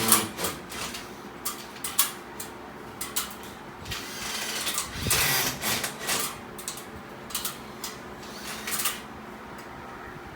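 Electric drill boring into a wall to make the air conditioner's pipe hole. It runs in uneven spells with irregular knocks, and there is a louder stretch of drilling about halfway through.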